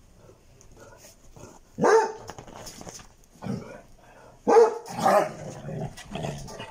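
Basset hounds barking at each other as they scuffle: a handful of loud, sharp barks, the loudest about two seconds in and about four and a half seconds in, with smaller barks between.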